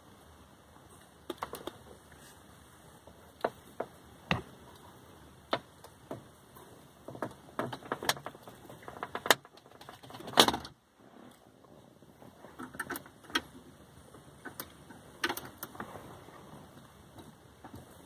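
A metal hook pick prying and scraping at the plastic centre-dash trim bezel of a 1997 Toyota Camry: irregular clicks, taps and scrapes as the bezel's clips work loose, the loudest crack about ten seconds in.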